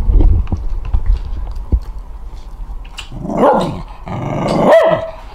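A pet dog vocalizes twice, first a short call and then a longer one that rises and falls in pitch, a jealous reaction as its owner kisses his girlfriend. A low rumble and a few clicks come before the calls.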